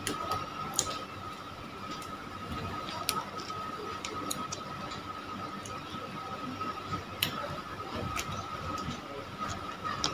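A few sharp crackles and clicks of a small plastic sauce sachet being torn open by hand and teeth, over a steady background tone.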